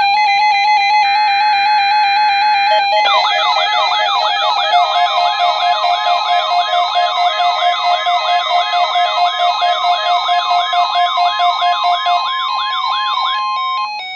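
Several NOAA weather alert radios sounding their alarms together, set off by the weekly test of the NOAA Weather Radio warning alarm. Steady electronic beeping for the first few seconds. Then, about three seconds in, a fast repeating warble of about three a second over a steady tone, which cuts off shortly before the end.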